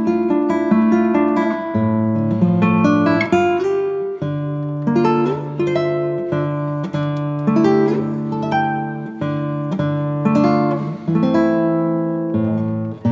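Background music: acoustic guitar playing plucked chords, changing chord about every second or so.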